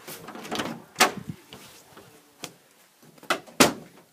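Knocks and clatters of objects being picked up and moved about, five or six in all, the loudest just after a second in and near the end.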